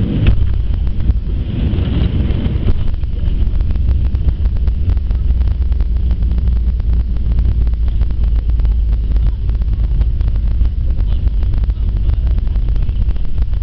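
Boeing 737 touching down, a sharp thud just after the start, then the heavy low rumble of the landing roll heard from inside the cabin. The rumble is fuller for the first few seconds and then settles to a steady roar, with many small rattles running through it.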